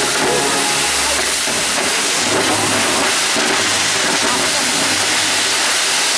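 A row of firework fountains spraying sparks with a loud, steady hiss.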